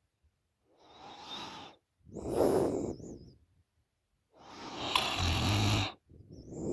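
A woman snoring through an open mouth: three breaths in a row, the last the loudest, ending in a low rattling snore.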